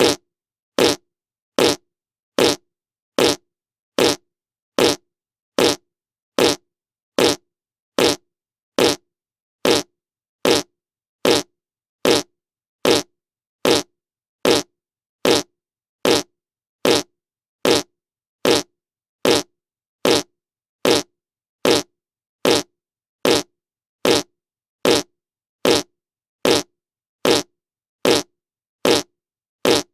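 A short fart sound effect repeated at an even pace, about five every four seconds, the same brief blast each time with silence between.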